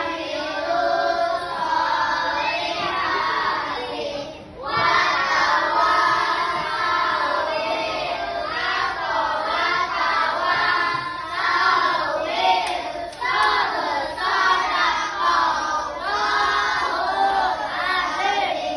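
A group of children singing a song together in unison, with a short pause about four and a half seconds in.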